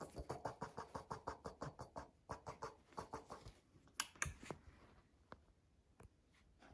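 Shih Tzu puppy making a quick run of soft, short mouth sounds, about six a second, for the first three seconds or so, then two sharper clicks about four seconds in and a few faint ticks.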